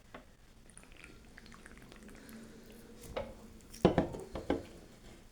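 Drinking from a can of Coke: after a quiet start, a few sharp gulping sounds come close together about four seconds in.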